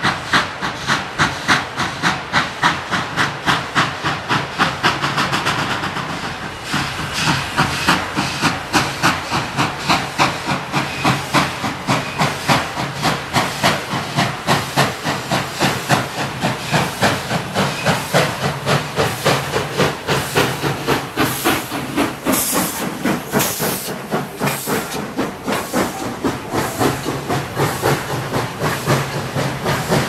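Central Railroad of New Jersey 0-6-0 steam locomotive No. 113 working, its exhaust chuffing in a quick, even rhythm over a constant hiss of steam. A few harsher hisses of steam stand out about two-thirds of the way through.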